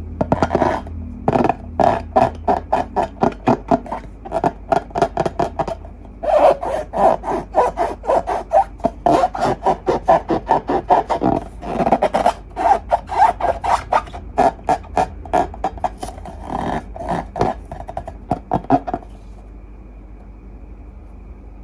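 Slime being squeezed and poked by hand: a fast series of short clicks and scrapes, several a second, with brief pauses, that stops a couple of seconds before the end.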